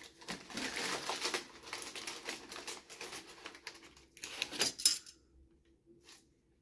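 Brown paper bag crinkling and rustling as Lebanese flatbread is pulled out of it, with a few louder sharp crackles near five seconds in.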